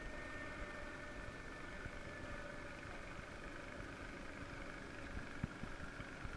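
Faint, steady engine hum, as of a motor idling some way off, with a few light knocks near the end.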